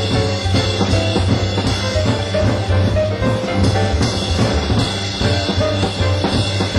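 Jazz quartet of saxophone, piano, double bass and drums playing live, with the drum kit busy and loud over a low bass line and short pitched melodic notes.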